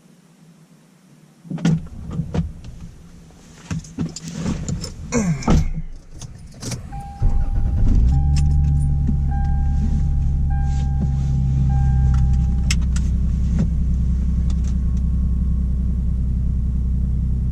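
Knocks and rattles, like a car door and keys being handled. About seven seconds in, a car engine starts and then idles steadily. A tone-like chime beeps repeatedly for several seconds after the start and then stops.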